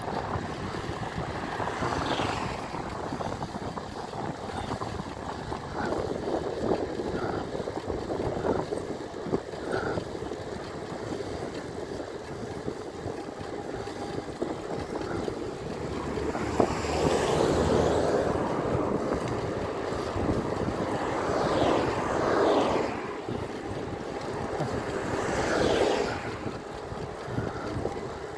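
Steady wind rumble on the microphone and road noise while riding an e-bike along a road, with several motor vehicles passing. Each vehicle swells up and then falls in pitch as it goes by, the loudest three in the second half.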